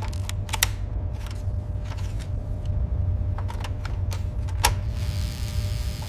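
Small sharp clicks of circuit-board modules being pushed into an electronics chassis by hand: a cluster near the start and a few more about four and a half seconds in. Beneath them runs a steady low hum, and a soft hiss comes in near the end.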